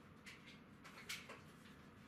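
Near silence with a few faint short clicks, the strongest about a second in.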